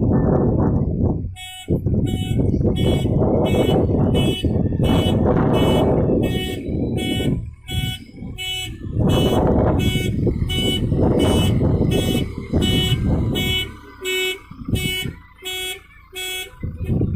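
A JCB 3DX backhoe loader's reversing alarm beeping about twice a second, starting about a second and a half in, over the steady running of its diesel engine.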